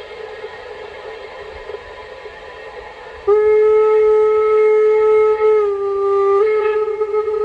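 Recorded train horn played back through a cheap MP3 player's small speaker. A quieter hum runs for about three seconds, then the horn sounds loud and steady, dips to a slightly lower note for under a second, and rises again.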